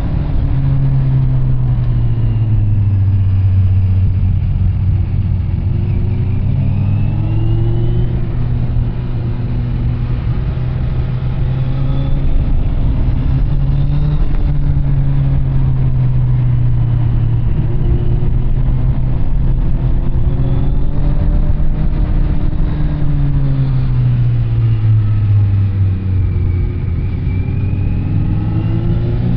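Kawasaki Z900 inline-four engine running through an SC Project CR-T carbon aftermarket exhaust while riding. The engine note falls off at the start, climbs again about a quarter of the way in, holds fairly steady through the middle, drops near the end and rises again at the very end as the throttle is opened.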